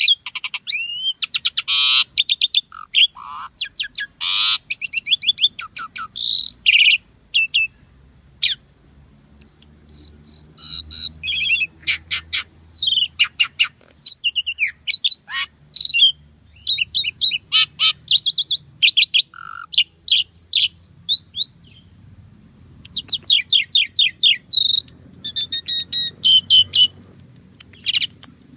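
Asian pied starling (jalak suren) singing a long, varied song of quick chattering notes, whistles and rattling trills in dense runs, with a couple of short pauses.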